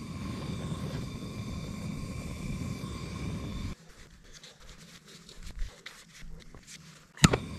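Electric heat gun running with a steady blowing whir while shrinking heat-shrink tubing over wire splices; it cuts off suddenly a little before halfway. Then come quiet handling clicks and rustles of wire, a loud sharp click near the end, and the heat gun running again.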